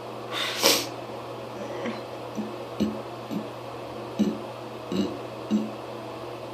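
A person straining to burp: a sharp intake of air about half a second in, then a string of seven short, low throat sounds spaced roughly half a second apart.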